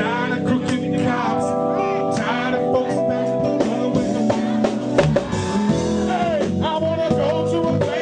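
Live soul band playing with a singer: held keyboard chords over bass and drums, with a vocal line above.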